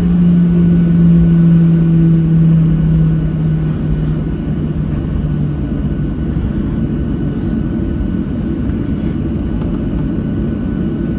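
Cabin rumble of a Boeing 737-700's CFM56-7B engines at low thrust, heard through the fuselage. A humming tone sinks slightly in pitch and fades out over the first five seconds, leaving a steady low rumble.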